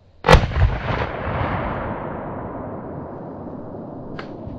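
A single shot from a Benelli semi-automatic shotgun about a third of a second in, its report rolling away for several seconds. A sharp click comes near the end.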